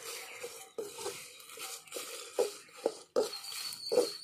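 Metal spoon stirring chillies and coriander leaves in a metal pan as they dry-roast, with about six short, sharp scrapes and knocks of the spoon against the pan.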